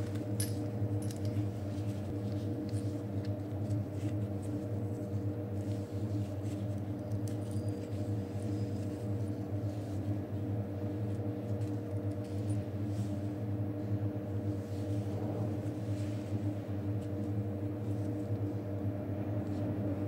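Faint metallic clicks and light rattles of an e-bike's front disc brake caliper and its small bolts being handled and fitted to the fork, over a steady low hum.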